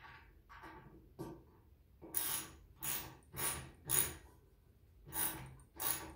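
Hand ratchet wrench clicking in short strokes as it tightens bolts through a wooden 2x4 frame: six strokes, starting about two seconds in, with fainter handling noise before them.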